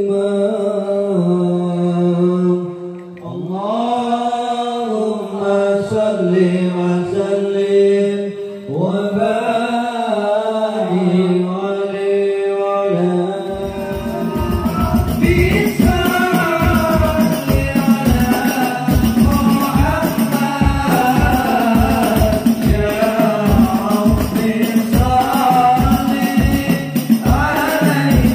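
Sholawat chanting: a voice singing long, gliding devotional lines unaccompanied. About halfway through, percussion comes in with a fast, steady beat under the singing.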